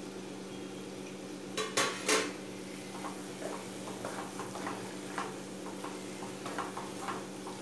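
A flat spatula stirring and scraping a thick, stiff bottle-gourd (lauki) barfi mixture around a nonstick kadai as it roasts on low heat toward leaving the sides of the pan. There are three sharp utensil knocks against the pan a little under two seconds in, then a run of small scraping ticks over a steady low hum.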